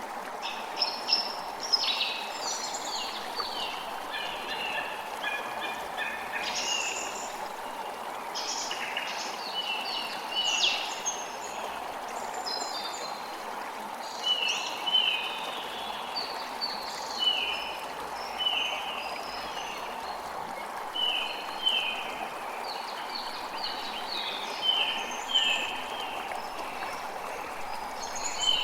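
Forest ambience: several birds singing and calling over a steady rush of running water. In the first half the calls are busy and overlapping; from about halfway, one bird repeats a short call roughly once a second.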